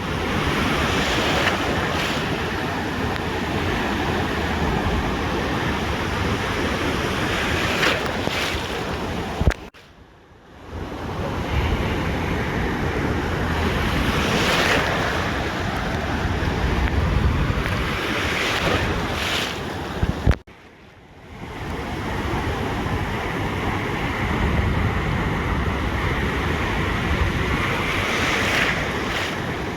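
Ocean surf washing onto a beach in steady surges, with wind buffeting the microphone. The sound cuts out suddenly with a click twice, about ten seconds in and again about twenty seconds in, each time for about a second.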